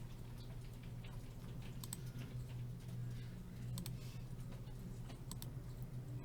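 Faint, sparse clicking at a computer while a file is saved: a few sharp clicks, some in quick pairs, over a steady low electrical hum.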